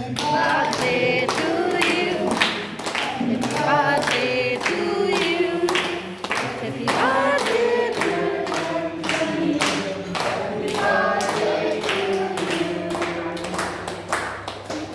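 A group of voices singing a birthday song together, clapping along about twice a second.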